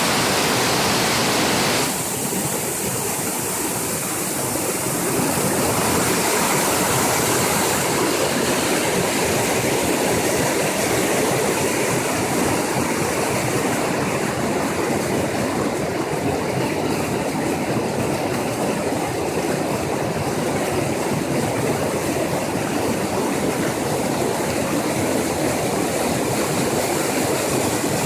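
Water flowing steadily, a constant even rush; its tone shifts and dips slightly about two seconds in, then builds back a few seconds later.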